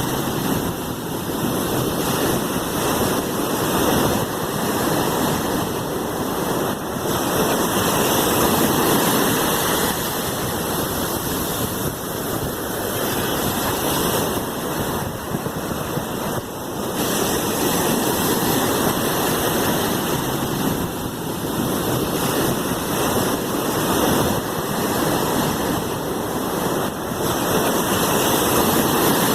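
Sea waves washing continuously: a steady rush of water noise that swells and eases gently.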